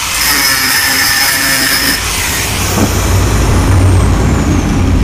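Handheld power tool running on metal with a dense hiss and high whistle. It is switched off about two seconds in, and its high whine falls away as it spins down while a low rumble builds underneath.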